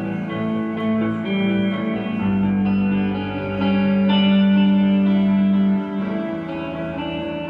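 Instrumental passage of a pop-rock song with no singing: guitar chords ringing with reverb, each held about a second before changing, with the sound growing louder near the middle.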